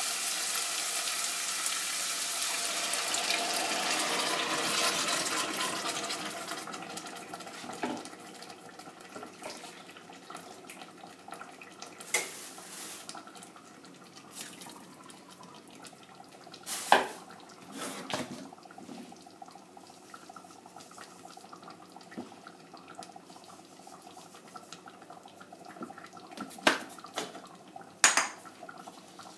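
Chorizo and onion sizzling hard in a stainless steel pot as the splash of white wine boils off. The hiss fades away over the first several seconds. After that, a few sharp knocks and clinks against the pot ring out as tomato sauce is poured in and stirred.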